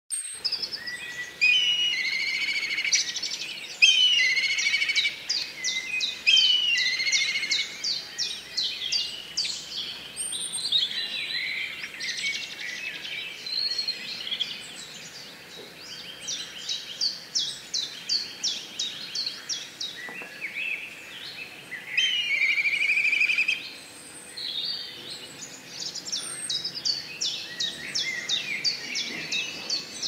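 Black kites calling: repeated shrill whinnying calls, each a whistled glide running into a fast quavering trill, coming one after another and sometimes overlapping, loudest in the first few seconds and again about two-thirds of the way through.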